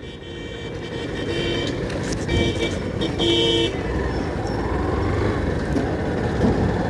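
Motorcycle running along a town road, its engine and wind noise growing louder as it picks up speed. A vehicle horn sounds three short toots between about one and four seconds in.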